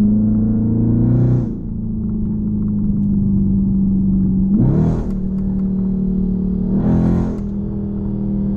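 Dodge Charger Scat Pack's 392 HEMI V8, with no catalytic converters and no mufflers, droning steadily as it drives, heard from inside the cabin. Its pitch climbs briefly and then drops about a second in, and two short louder bursts come about five and seven seconds in.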